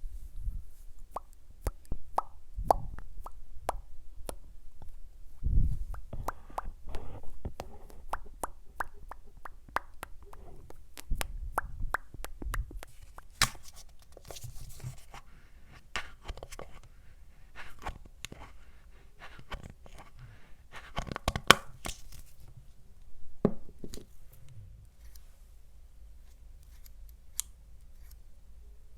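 Close-miked handling sounds: irregular small clicks and taps with some tearing and rustling, and a few soft thumps.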